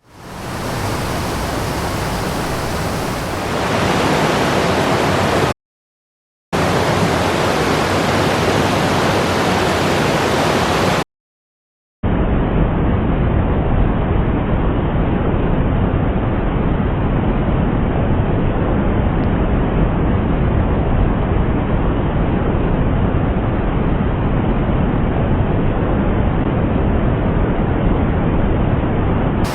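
Steady loud rush of a mountain stream's flowing water, running higher than usual. It fades in at the start and breaks off into silence twice, briefly, about six and eleven seconds in. After the second break it comes back duller, without its high hiss.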